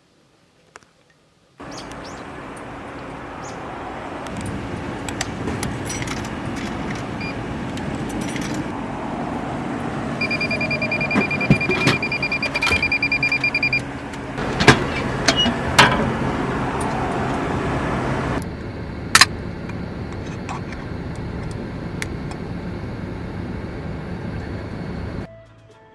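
Steady road and engine noise of a car driving, with a high electronic beep held for about three and a half seconds around the middle and a few clicks and knocks. The noise drops a little in level partway through and stops shortly before the end.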